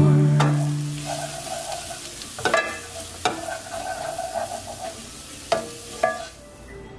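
Diced onions and peppers sizzling in a pot as a wooden spoon stirs them, with four sharp knocks of the spoon against the pan. The sound grows quieter near the end.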